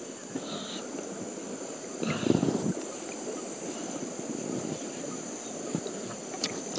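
River water splashing and dripping as a fishing net is hauled in by hand, with a louder splash about two seconds in. A steady high-pitched insect drone runs behind it.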